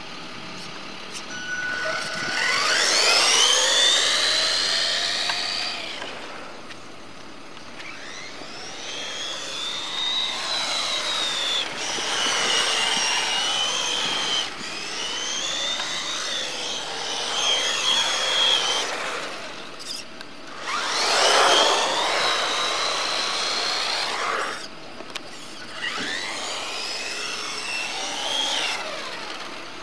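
Electric RC drift car's HPI Firebolt 15T 540 brushed motor and drivetrain whining under throttle. It comes in about six spells of a few seconds each, the pitch rising as it speeds up and falling as it slows.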